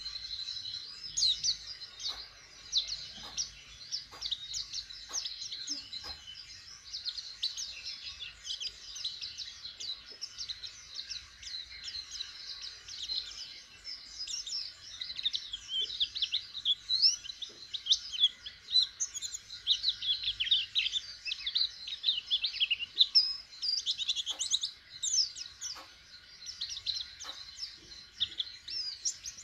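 Caged white-eye (pleci) singing a rapid, high twittering song, the chirps tumbling on almost without a break and busiest in the second half: a young bird learning to sing.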